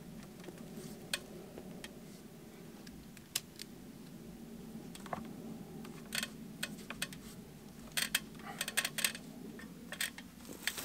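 Light metallic clicks and clinks, scattered at first and coming in a quick run near the end, over a low steady hum.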